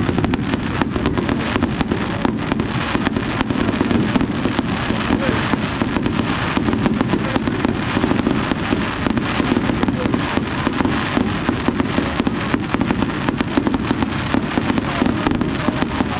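Aerial fireworks shells bursting overhead in a continuous, fast crackle of many small sharp reports, with a steady din beneath.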